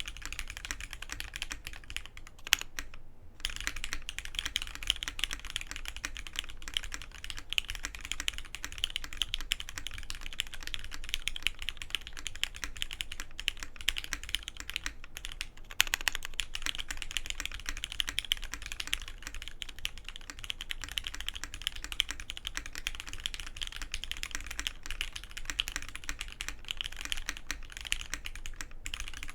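Continuous fast typing on a Matrix 8XV2.0 Add mechanical keyboard with lubed, retooled Cherry MX Black linear switches, an aluminium plate and GMK keycaps. The typing pauses briefly about three seconds in.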